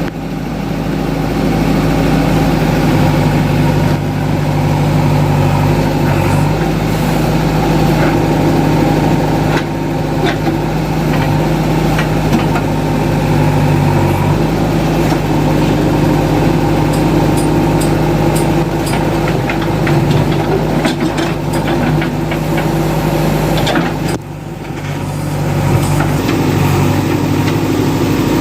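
Diesel engine of a JCB 3DX backhoe loader running steadily as it works, its pitch shifting with the load. Near the end it drops away briefly, then picks up again.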